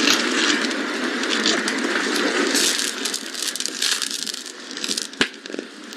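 Chanterelle mushrooms sizzling and crackling as they fry in a pan, the sizzle easing off in the second half, with a few sharp ticks near the end.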